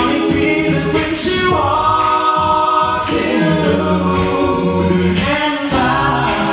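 Male a cappella vocal group singing in close harmony into microphones, holding sustained chords over a low bass voice.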